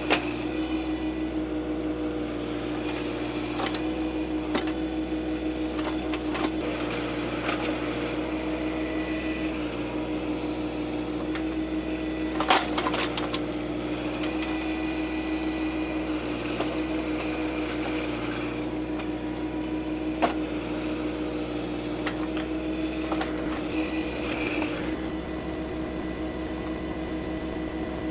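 John Deere 2025R compact tractor's diesel engine running steadily under load while its backhoe digs, with a high hydraulic whine over the engine and a few sharp knocks of the bucket against the ground.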